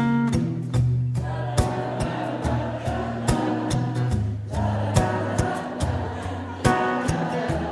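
Live band music: drums, bass and guitar playing, with voices singing.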